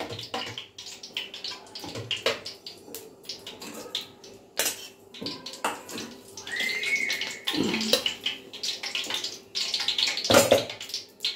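A steel spoon clinking and scraping against a large aluminium kadai as ghee melts in it, over a steady hiss. A louder metallic knock near the end as a metal bowl is brought to the pan.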